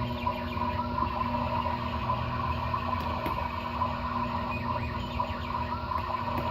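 Motion waterfall picture running, with a steady electrical hum and rushing-water hiss and short bird-like chirps scattered throughout.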